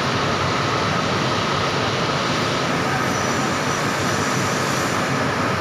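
Engine of a Mercedes-Benz intercity coach running steadily at close range, with a faint steady high whine over it.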